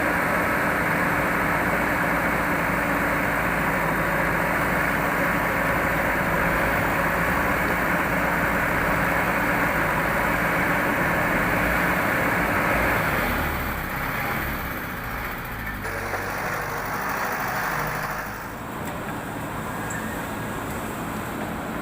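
Heavy diesel engine of earthmoving machinery running steadily and loudly. About 13 seconds in it eases off and becomes quieter and less even.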